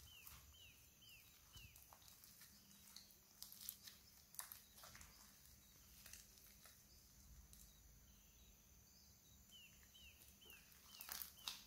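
Faint sticky clicks and pops of glitter slime being squeezed, stretched and poked between fingers. A run of quick, short falling chirps sounds at the start and again near the end.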